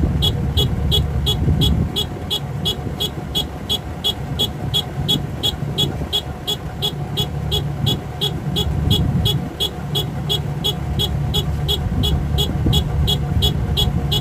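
Rice combine harvester engine running steadily under load, with a regular high-pitched tick or beep about three times a second over it.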